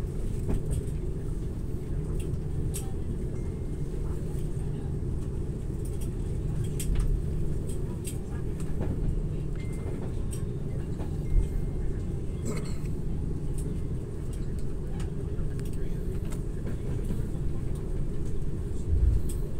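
Cabin rumble of an Airbus A330-900neo rolling on its landing gear as it slows and turns off the runway after touchdown: a steady low rumble with occasional light knocks and rattles, the sharpest about halfway through.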